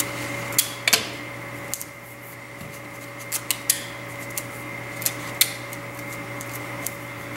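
Clear Scotch tape and paper being handled: a scatter of short clicks and rustles as tape is pulled off the roll and pressed down onto the paper sheets, over a steady faint hum.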